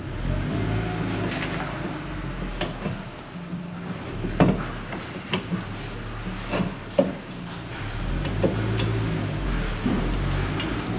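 Rear brake drum of a VAZ-2110 being worked onto the hub over the brake shoes by hand: scattered metallic knocks and scraping rubs as it is pushed and turned into place, over a steady low hum.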